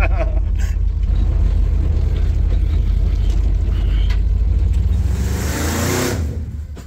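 Engine of a vintage vehicle running as it drives, heard from inside the cab as a steady low rumble. About five seconds in, the rumble fades under a brief louder rushing noise.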